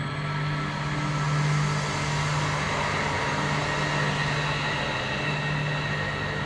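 Sound accompanying a dance performance: a steady low drone with a dense rushing noise over it, holding at an even level.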